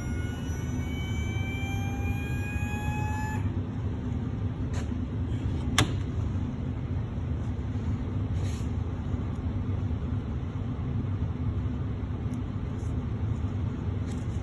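Steady low hum of laboratory equipment. During the first three seconds an electric motor whines with a slowly rising pitch, then cuts off. A single sharp click comes about six seconds in.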